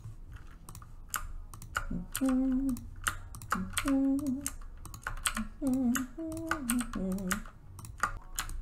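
Quick clicking of a computer keyboard and mouse throughout. From about two seconds in, a person hums a short tune of several held notes over the clicking.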